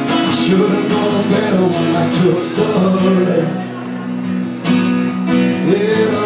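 Acoustic guitar strummed in a live solo performance, with a man's voice singing over it.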